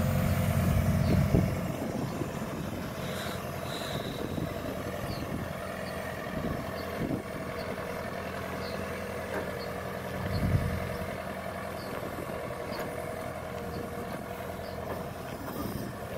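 Tractor engine running steadily while it moves a towed Kuhn SW 4014 bale wrapper up to a square hay bale. The engine is louder for the first second or so and swells briefly about ten seconds in.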